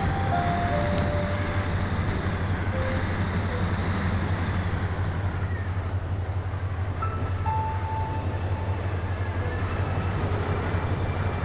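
Airflow rushing over a keychain camera on the cockpit of a Phoenix 2000 RC glider in flight: a steady low rumble under a broad hiss, the hiss turning duller about halfway through.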